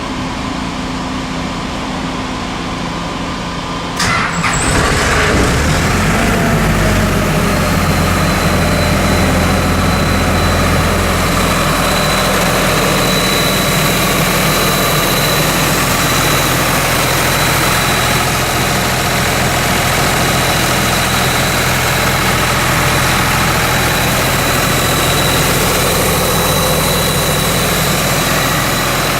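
Ingersoll Rand P175 portable air compressor's John Deere diesel engine starting. A steady hum gives way about four seconds in to a sudden jump in loudness as the engine catches. Its speed settles within a few seconds, and it then runs steadily with a thin high whine on top.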